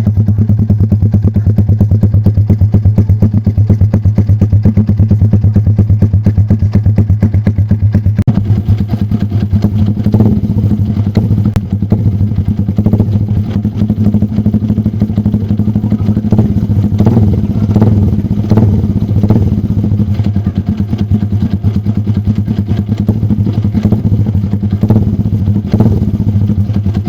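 Motorcycle with an aftermarket racing exhaust running loud, first with a steady fast-pulsing exhaust note. From about eight seconds in the note turns uneven, with sharp cracks from the exhaust between about ten and twenty seconds.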